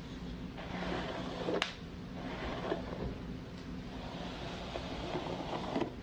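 Hairbrush bristles drawn through hair in long, slow strokes, each a soft swishing brush sound lasting one to two seconds. The first stroke ends in a short sharp swipe about a second and a half in.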